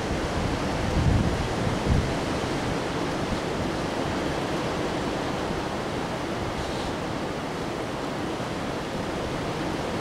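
Windstorm wind blowing through bare treetops, a steady rush of noise. Gusts buffet the microphone in two low thumps about one and two seconds in.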